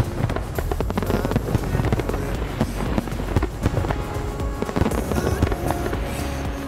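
Fireworks banging and crackling in rapid succession, mixed with background music.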